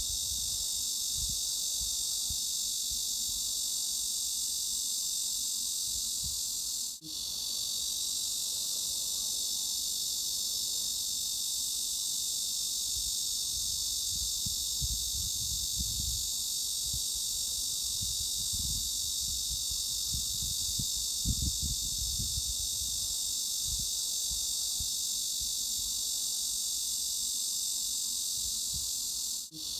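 Cicada chorus: a steady, unbroken high-pitched buzz of insect song. Low rumbles come and go underneath, and the sound drops out for a moment twice, about seven seconds in and just before the end.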